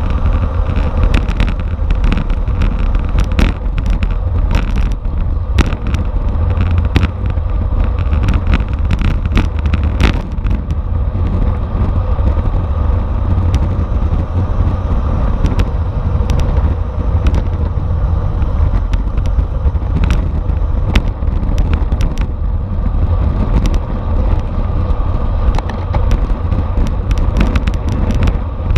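Wind rushing over the microphone of a camera on a racing bicycle at speed: a loud, steady low rumble, with frequent sharp clicks and knocks.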